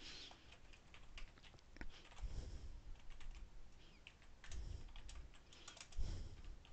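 Faint typing on a computer keyboard: irregular keystrokes, with a few louder, duller taps among them.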